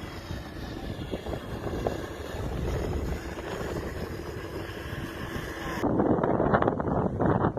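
Strong dust-storm wind blowing and buffeting the microphone as a steady rushing rumble. It grows gradually louder, and about six seconds in it turns louder and gustier, with uneven thumps of wind on the microphone.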